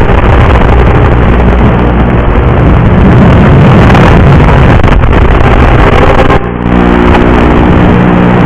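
Loud, harsh hiss and buzz on the audio track of an analog FPV video receiver's DVR recording, the noise of the video link rather than sound picked up in the air. About six and a half seconds in it dips briefly, then a steady pitched hum joins the noise.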